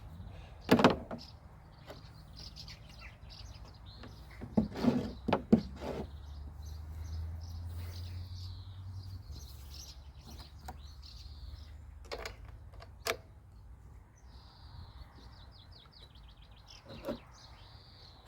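Scattered knocks and clatter of things being handled and moved, loudest in a cluster about five seconds in, with small birds chirping and trilling throughout over a low steady hum.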